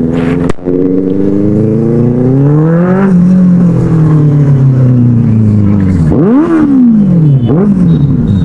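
Superbike engine rising in pitch for about three seconds as the rider accelerates, easing down as he rolls off, then two quick throttle blips near the end.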